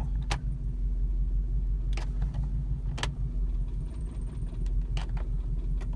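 Toyota 4Runner four-cylinder engine idling rough in neutral, sagging as though it wants to stall while the power-window motors are loaded against windows that are already shut, with a few sharp clicks.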